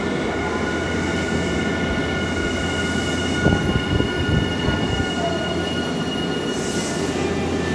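Electric multiple-unit trains, a Nankai Southern Premium 12000 series and a Semboku 7000 series, running past each other through a station: a steady rumble of wheels on rail with a steady high-pitched whine over it, and a few knocks from the wheels about halfway through.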